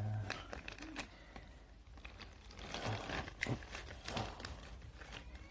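Faint handling noise: a few light scattered clicks and soft rustles.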